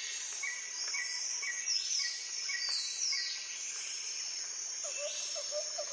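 Insects and birds: a steady high insect drone, a short chirp repeating about twice a second and several falling bird calls. Near the end a lower call begins, repeating rapidly.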